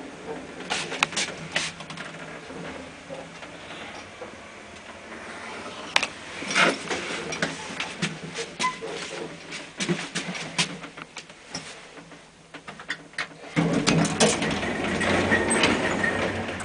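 1994 Schindler passenger lift at work: a run of mechanical clicks and clunks, then a louder steady rumble for the last three seconds.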